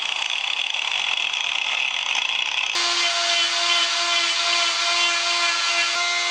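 A rough power-tool grinding noise on wood. About three seconds in it cuts to a flexible-shaft rotary carving tool running with a steady whine as its bit works the cedar figure.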